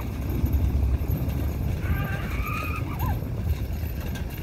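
Steady low rumble of a vehicle and wind following a racing two-bull cart on a dirt track, with a few brief high calls that bend in pitch about two and three seconds in.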